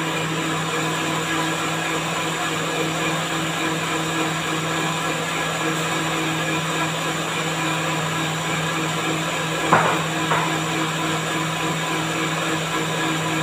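Electric countertop blender motor running at a steady speed, blending lemon juice with mint leaves into a green drink. Two brief knocks sound about ten seconds in.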